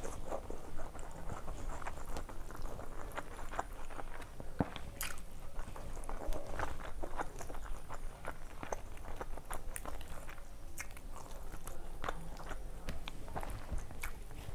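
A person eating rice and curry by hand: wet chewing and lip-smacking close to the microphone, with many short clicks, while fingers mix rice on a metal plate.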